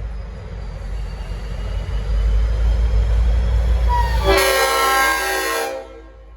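Leslie RS5T five-chime air horn on a V/Line N class diesel locomotive sounds one loud chord blast of about a second and a half, starting about four seconds in and cutting off sharply. Under it is the low rumble of the departing train, which grows louder up to the blast.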